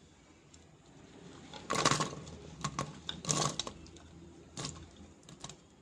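Peeled shallots tumbling from a plate into a pressure cooker onto soaked chickpeas: two short rattling clatters, about two seconds in and again past three seconds, with a few single knocks after them.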